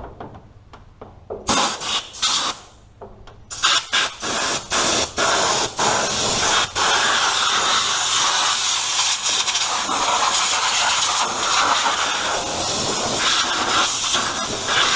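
Compressed-air blow gun blasting around a diesel engine's injectors to clear out dirt: first a few short bursts of hissing air, then a long continuous blast from about halfway.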